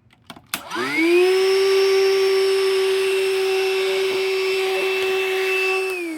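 BLACK+DECKER dustbuster FLEX cordless handheld vacuum switched on with a click. Its motor whines up to speed and runs steadily on its newly fitted replacement battery pack, showing the repair works. Near the end it is switched off and winds down with a falling pitch.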